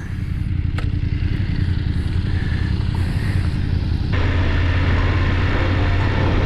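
Adventure motorcycle engine running steadily on the move. A louder rush of wind and road noise joins about four seconds in.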